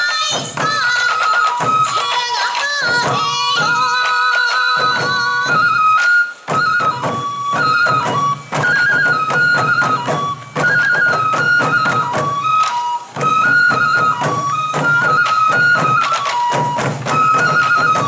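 Sansa odori festival music: sansa taiko drums beaten in a steady rhythm under a yokobue bamboo flute melody, with a few brief breaks between phrases.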